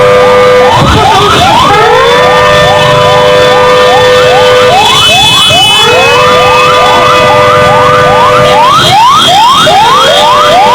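Loud alarm sirens sounding a flood warning. They alternate between a held steady tone and runs of quick rising sweeps, several times a second, with more than one siren overlapping.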